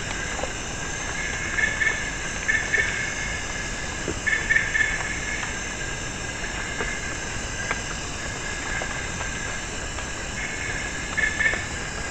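Night forest insect chorus: a steady shrill hiss made of several held tones, with short buzzing calls standing out four times, and a few faint ticks scattered through it.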